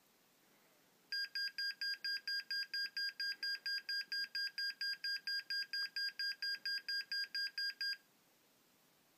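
Electronic buzzer on an HCS12 microcontroller board beeping rapidly on one steady high tone, about four short beeps a second. The beeping starts about a second in and stops after about seven seconds.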